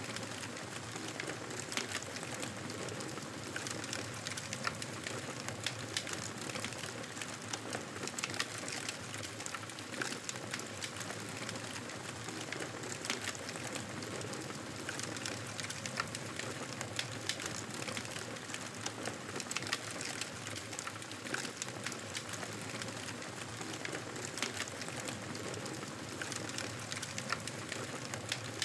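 Wood campfire burning, crackling steadily with frequent sharp pops and snaps over a soft hiss.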